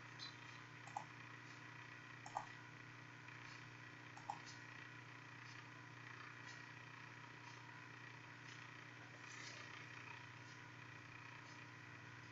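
Near silence: a faint steady hum, with a few short computer-mouse clicks in the first few seconds.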